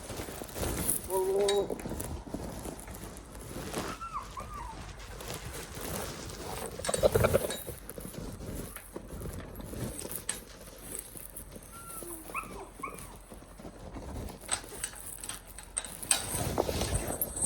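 Several short animal calls a few seconds apart, some with a hooked, rising-then-falling pitch, over light rustling and knocks.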